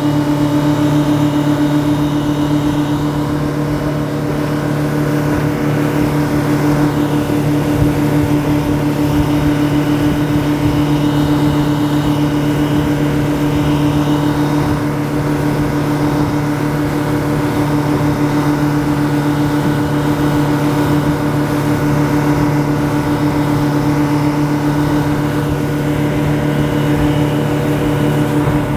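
Twin Yamaha 150 outboard motors running steadily at a constant cruising speed under load, with water and spray rushing past the hull. These are engines that were submerged when the boat sank, and they are running smoothly on their first sea trial.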